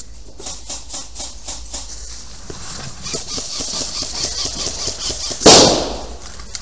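Quick footsteps crunching through dry leaves and brush, with gear rustling: a run of short, sharp crackles several times a second. About five and a half seconds in comes a single loud, sudden bang or blast that dies away within half a second.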